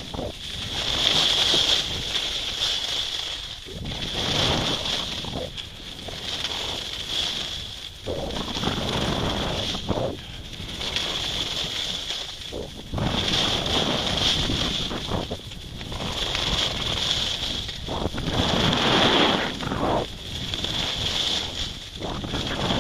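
Skis scraping across groomed snow through linked turns, with wind rushing over the microphone; the noise swells and fades every two to three seconds, with each turn.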